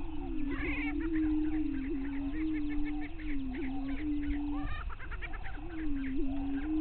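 Male greater prairie chickens booming on their lek: low, steady moaning tones from several birds, one after another with hardly a break except briefly near the end. Higher cackling and whooping calls from the flock sound over the booms.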